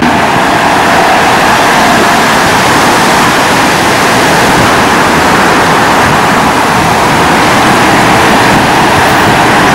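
Steady rushing road noise of street traffic, a loud even hiss with no clear engine note.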